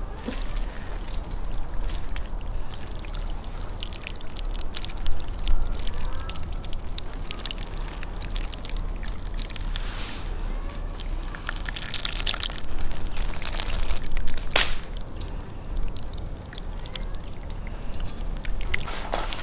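Water pouring from an enamel kettle onto a whole sturgeon on a wooden board, splashing and trickling over the fish's skin, with a few louder surges of the stream.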